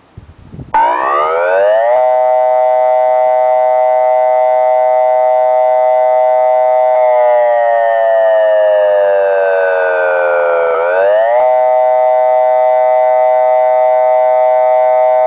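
Electronic siren speaker playing a Thunderbolt 1003 siren tone: the wail winds up within the first second or two to a steady pitch. About halfway through the pitch sinks slowly for several seconds, then swings quickly back up and holds steady again.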